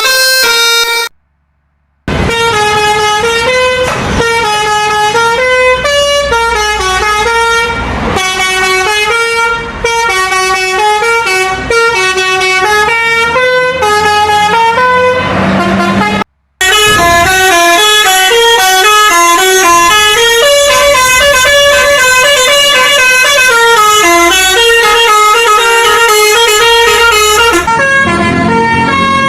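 Bus 'telolet' basuri horns, multi-tone air horns on buses, playing quick stepping melodic tunes loudly. Several clips follow one another, with brief silent breaks about a second in and again around sixteen seconds.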